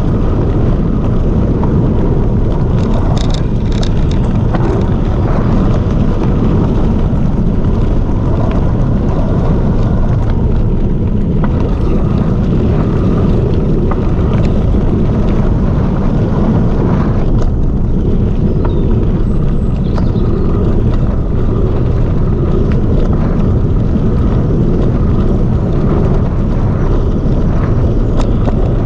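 Calibre Bossnut mountain bike rolling down a dirt woodland track, heard from a camera mounted on the bike: a steady rumble of tyres on dirt and wind buffeting the microphone, with scattered clicks and rattles.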